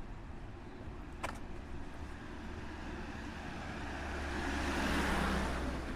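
A car passing on the street, its noise building to a peak about five seconds in and then falling away, over a steady low traffic rumble. A single short click about a second in.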